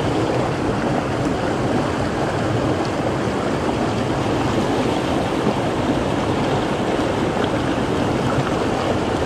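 Steady rush of a mountain stream's flowing water, an even noise that holds level throughout.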